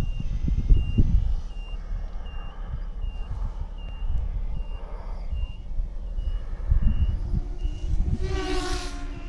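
An electronic beeper gives short, high, evenly spaced beeps, about three every two seconds, over a low rumbling on the microphone. Near the end comes a brief loud rush of noise with a rising hum.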